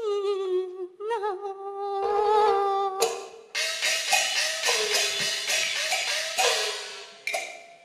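Cantonese opera music: a held, wavering melodic line, then from about three seconds in a run of sharp percussion strikes, each ringing on with a tone that bends in pitch, typical of opera gongs and cymbals.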